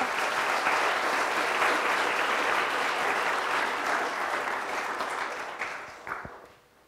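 Audience applauding at the end of a talk, dying away about six seconds in.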